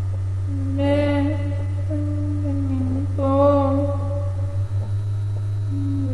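A voice humming a slow, wordless tune in long held notes, over a steady low hum.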